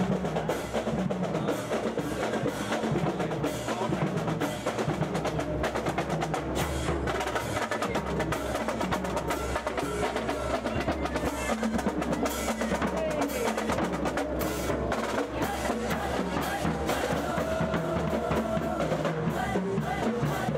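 Marching band drumline playing a street cadence: rapid snare drum strokes and rolls with sharp rim clicks, keeping a steady march beat.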